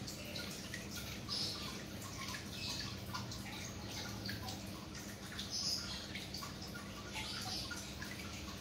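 Water dripping and trickling in many small irregular drops over a steady low hum.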